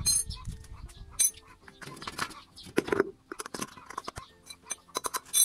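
Metal clinks, knocks and scrapes as the wheel and axle are worked off a wheelbarrow frame, with a sharp clank at the start and another near the end.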